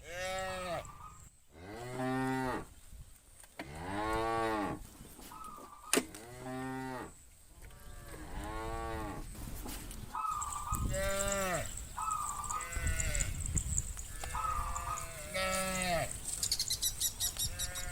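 Cattle mooing, one call after another roughly every one to two seconds, with some higher, shorter calls in between.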